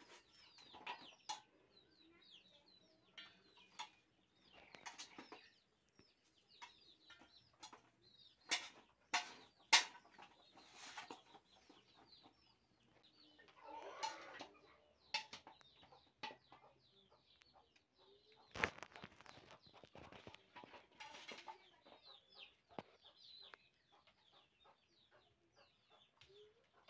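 Fresh okra being cut with a small knife and the pieces dropped into an aluminium pot: a scattered series of sharp clicks and taps. Bird calls sound faintly in the background.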